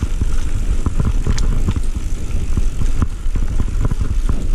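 Mountain bike being ridden over a rough dirt trail, the frame and parts rattling with many small knocks and clicks, under a heavy rumble of wind buffeting the microphone.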